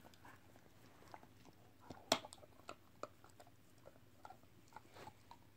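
German Shepherd puppy chewing and gnawing a hard dog-treat bone: faint, irregular crunches and clicks of teeth on the bone, with one sharper crack about two seconds in.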